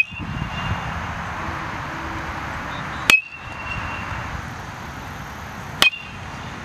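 Metal baseball bat hitting pitched balls, twice about three seconds apart, the first about three seconds in and the second near the end. Each hit is a sharp crack followed by a short, high ringing ping.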